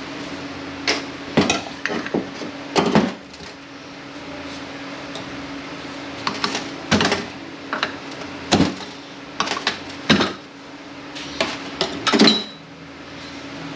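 Metal automatic-transmission parts (a clutch piston, return spring and balance piston) clanking and clinking irregularly as they are taken apart and set down, over a steady hum.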